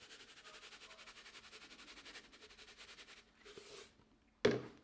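Salt grinder being turned over a bowl, giving a rapid, even clicking grind for about three seconds as Himalayan salt is ground in. A sharp knock comes near the end.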